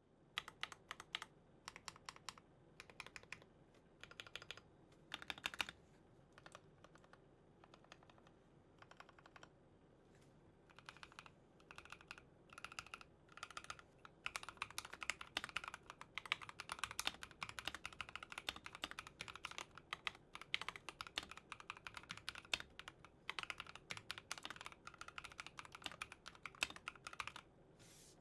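Typing on a custom mechanical keyboard with KTT Strawberry linear switches: separate key presses at first, then quick continuous typing from about halfway through.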